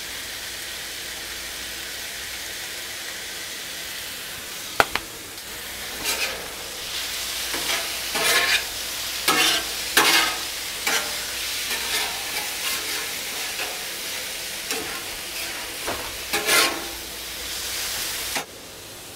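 Garlic and food sizzling on a Blackstone flat-top griddle, with a sharp metal clink about five seconds in, then repeated scrapes of a metal spatula across the griddle as the food is stirred. The sizzle drops off suddenly near the end.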